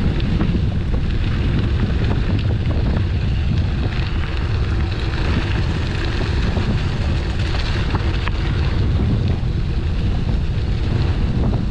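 Wind buffeting the microphone: a loud, steady low rumble, with scattered light clicks and rattles over it.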